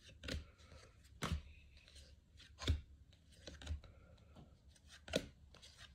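Baseball trading cards being handled, about five faint, short card taps and slides spread out with quiet between them.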